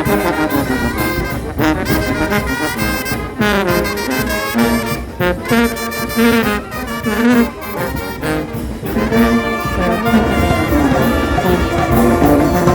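Brass band music: trumpets and trombones playing a melody with percussion.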